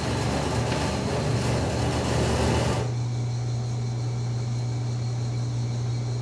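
Electric ice shaver running, shaving ice for a snowball, for nearly three seconds and then cutting off. A steady low hum continues underneath.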